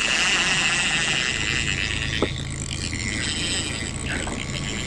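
Small outboard motor running steadily at trolling speed, a low hum under a steady hiss.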